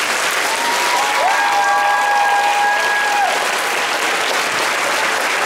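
Audience clapping steadily, with a long held cheer over the clapping for about two seconds near the middle.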